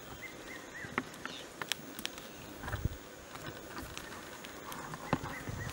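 Outdoor bush ambience: scattered sharp clicks and a few short high chirps over a faint steady hiss, with a couple of low thumps.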